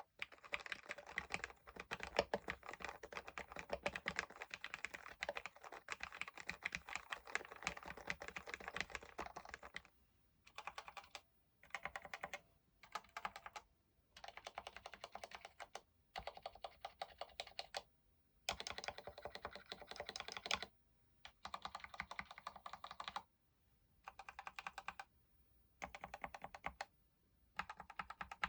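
Actto B703 mini mechanical keyboard being typed on: about ten seconds of fast, continuous typing on spray-lubed Gateron Brown tactile switches. After that, short bursts of repeated key presses with brief pauses between them test the stabilizers of the Outemu Red board, first stock and, near the end, lubed with synthetic grease.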